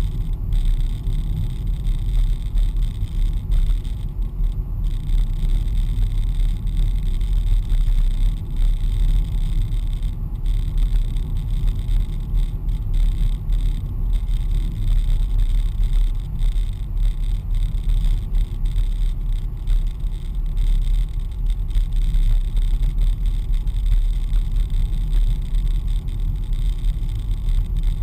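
Steady low rumble of a car driving along, heard from inside the cabin: engine and tyre noise on the road.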